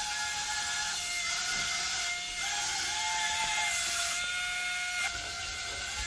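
Suction fan of a wall-climbing remote-control car whining steadily as it holds the car to the ceiling, with a second wavering whir and brighter hiss coming and going as the car drives.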